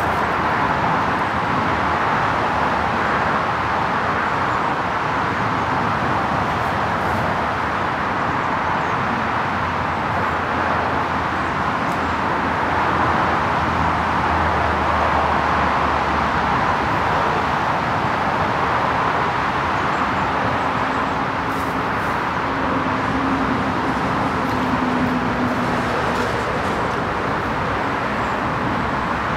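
Steady rushing background noise with no breaks, and a faint low hum that comes and goes about two-thirds of the way through.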